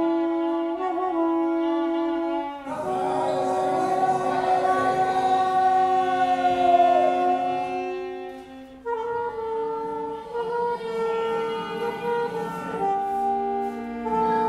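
Contemporary chamber music: a single-reed wind instrument plays long held notes. The pitch shifts about three, nine and thirteen seconds in, and the middle note wavers and bends.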